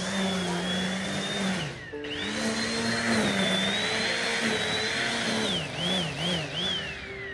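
String trimmer running at full speed, a high whine over the rasp of cutting line through weeds. It eases off about two seconds in and speeds up again, then dips three times in quick succession as the throttle is blipped, and winds down at the end.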